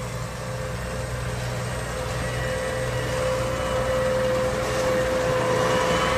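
Tractor engine working steadily under load, pulling a seven-furrow plough through the soil: an even drone with a held whine above it, growing gradually louder.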